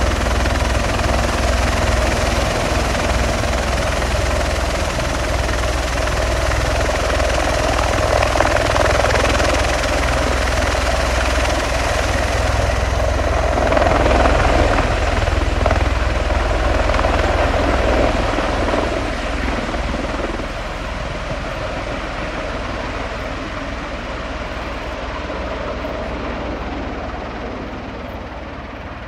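V-22 Osprey tiltrotor running with its two proprotors in helicopter mode, a steady deep rotor thrum over turbine noise. It is loudest a little under halfway through, then fades gradually as the aircraft lifts off and climbs away.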